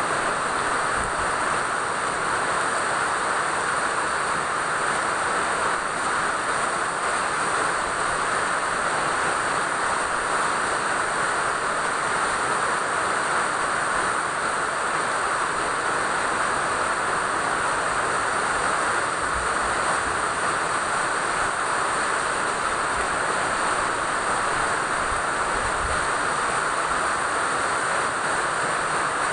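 Steady rain: an even, unbroken hiss that holds the same level throughout.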